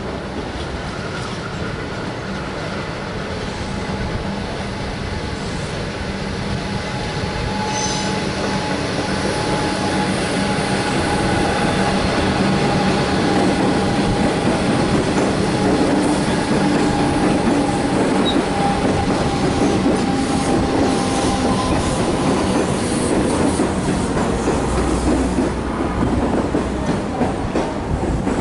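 A Comeng electric multiple-unit train running past on the tracks, its rolling rumble growing louder towards the middle, with a faint thin steady squeal from the wheels and a few sharp clacks near the end.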